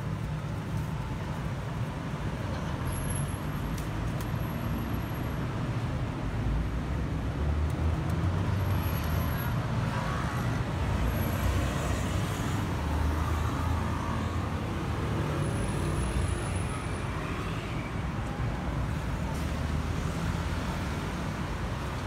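Road traffic: a steady low rumble of passing vehicles, louder for a stretch in the middle.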